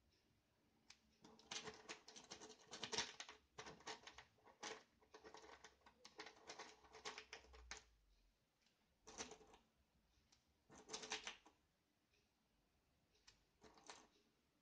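Small .177 airgun pellets clicking and rattling as fingers rake through a metal tin and press them one by one into a 3D-printed plastic magazine. The clicks come in quick bunches, densest in the first half, then in two short clusters and a few stray ticks near the end.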